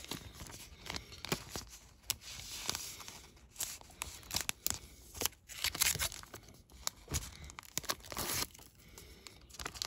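Thin plastic bag crinkling and rustling as a hard plastic graded-card slab is handled, with scattered light clicks and taps of the slab.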